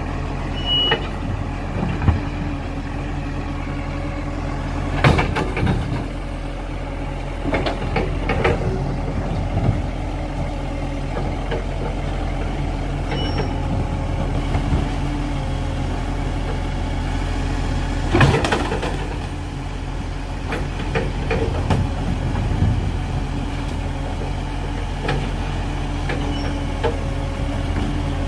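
Side-loading garbage truck's diesel engine running steadily, with a series of sharp metallic clanks and knocks several times over, the loudest about five and eighteen seconds in.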